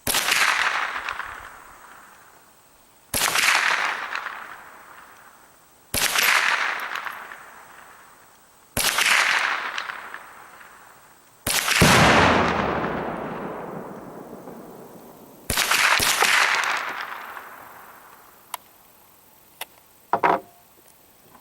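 Repeated .22 rifle shots, about one every three seconds, each a sudden bang trailing off in a long echo over a couple of seconds. The last shot is followed half a second later by a second bang, and a few small clicks come near the end.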